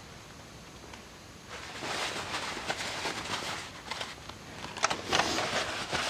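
Handling noise: rustling and scraping with scattered light clicks, and a few sharper clicks about five seconds in, as engine parts are handled by hand.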